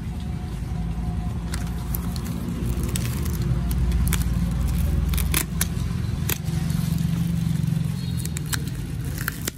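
Utility knife slitting packing tape and bubble wrap, with plastic crinkling and scattered sharp clicks, over a steady low rumble.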